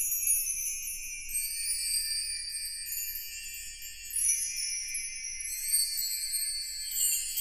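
Sparkly background music of high jingle-bell and chime tones, light overlapping tinkles with nothing low beneath them.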